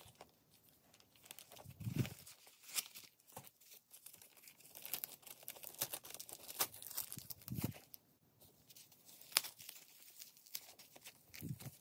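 Plastic wrap and paper stuffing crinkling and rustling in close-up as they are pulled off and out of a new leather shoulder bag by hand. Scattered crackles are heard throughout, with a few soft thumps from handling the bag.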